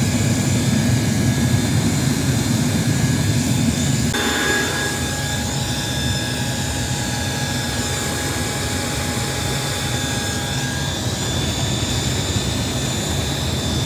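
Large forced-air rocket burner firing into a pit furnace, running without its oxygen lances: a steady jet-like roar. It drops a little in level about four seconds in.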